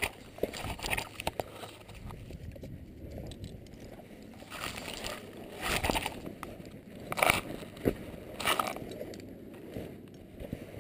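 Wind rushing past a GoPro strapped to a parachutist's boot during the canopy descent, with rustling of trouser fabric and lines against the camera. Several louder gusts come in the second half.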